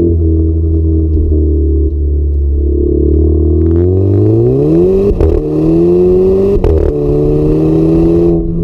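Stock exhaust of a 2010 Seat Ibiza Cupra Bocanegra's 1.4 TSI engine idling steadily, then revved up about three and a half seconds in and held high, with two sharp cracks, before the revs drop near the end.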